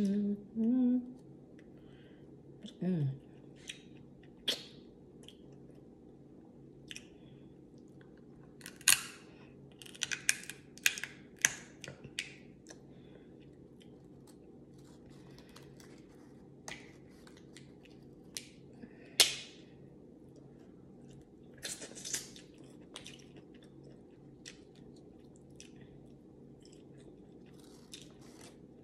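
Mukbang eating sounds from a seafood boil: shellfish shells cracked and picked apart by hand, with wet chewing and lip smacking. The clicks and crackles come in scattered bunches, densest about nine to twelve seconds in, with a sharp crack at about nineteen seconds. There are two short hummed 'mm' sounds in the first few seconds, all over a low steady hum.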